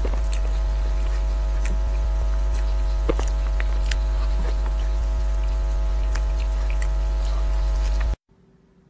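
Loud steady electrical hum with a row of overtones, over scattered soft clicks and taps from a spoon and mouth while eating cake. It cuts off abruptly about eight seconds in.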